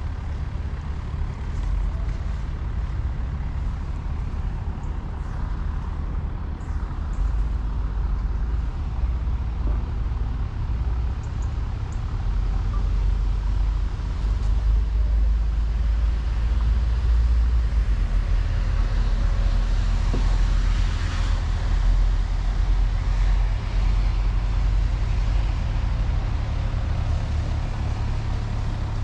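Low, steady engine rumble.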